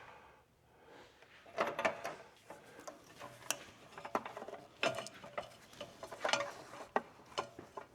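Scattered metallic clicks and clinks of a socket and hand tools being worked onto an exhaust oxygen sensor, irregular and unhurried.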